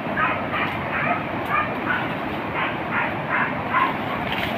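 Hunting dogs barking repeatedly, short high barks coming in irregular runs several times a second over a steady rushing noise.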